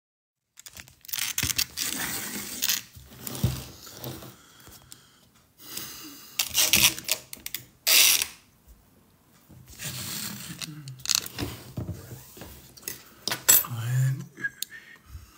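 Handling noise of a phone being set up and propped in place: rustling and knocks in several bursts of a second or two, with light clatter of tableware.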